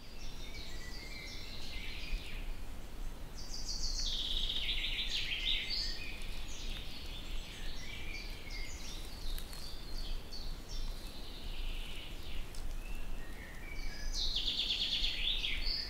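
Outdoor ambience of several birds calling and chirping, with a louder rapid trilling run about three seconds in and another near the end, over a low steady hum.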